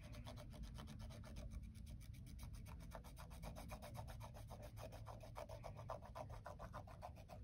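A cotton swab scrubbing back and forth on the canvas of an oil painting, a faint, fast, even run of rubbing strokes that stops near the end, as smoke grime is worked off the paint.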